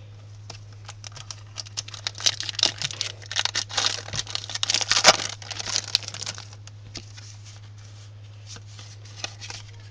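Foil wrapper of a Pokémon TCG HeartGold SoulSilver booster pack being torn open and crinkled, a dense crackling that is loudest about halfway through and then thins to a few scattered crinkles. A steady low hum runs underneath.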